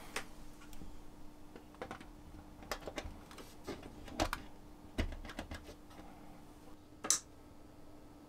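Small scattered clicks and taps of a Heljan Class 33 OO-gauge model diesel locomotive being handled and set down on the track, its wheels clicking onto the rails, with a faint steady hum underneath. The sharpest click comes about seven seconds in.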